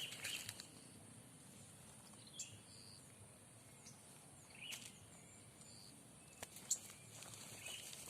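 Quiet outdoor background with a few short, scattered bird chirps and a couple of soft clicks.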